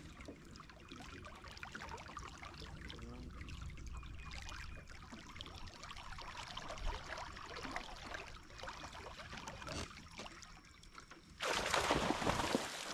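Small waves lapping and trickling against the hull of an aluminum bass boat, with faint ticks. Near the end a sudden, much louder rush of noise sets in.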